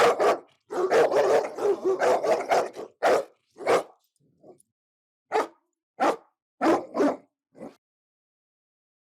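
Angry dog barking: a rapid, dense flurry of barks for about three seconds, then single sharp barks spaced about half a second to a second apart, stopping a little before the end.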